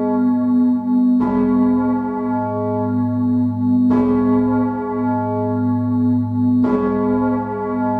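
Large bronze church bell of 4,100 kg with strike tone G sharp, swinging and struck by its clapper three times, about every two and a half to three seconds. Each stroke rings on into a steady deep hum that lasts under the next, heard close up in the bell chamber.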